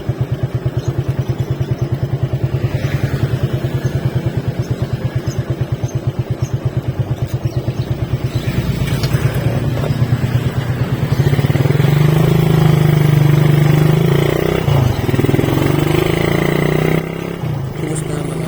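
Motorcycle engine idling with an even, rapid putter, then picking up speed about halfway through and running at a higher, louder steady note before easing off near the end.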